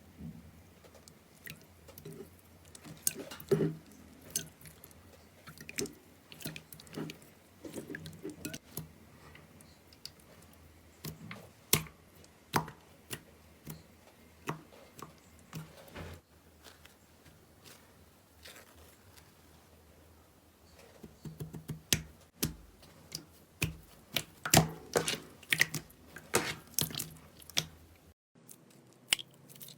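Slime being squeezed and poked by hand, making irregular sticky pops and crackles that come in busy clusters with quieter stretches between.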